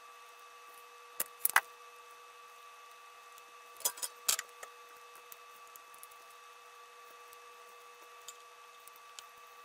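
Small clicks and taps of desoldering work at the bench: a few sharp clicks about a second and a half in, then a louder cluster of clicks around four seconds as the soldering iron is set back into its coiled wire stand, followed by faint scattered ticks. A faint steady hum runs underneath.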